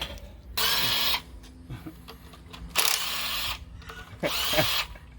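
A power tool run in three short bursts, each about half a second, on bolts during an engine teardown.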